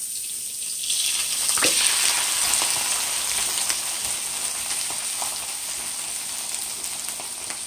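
Broccoli florets frying in rendered bacon fat in a pan: a steady sizzle with crackles, louder from about a second in, as the broccoli starts to caramelize.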